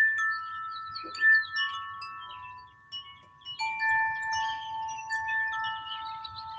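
Chimes ringing: overlapping clear tones at several pitches, sounding at irregular moments and each ringing on for a second or more.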